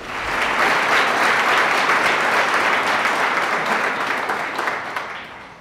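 Audience applauding, the clapping steady at first and dying away near the end.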